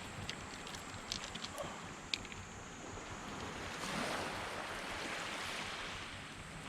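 Sea waves washing onto the shore, a steady hiss with one wave swelling up about four seconds in. A few faint sharp clicks come in the first couple of seconds.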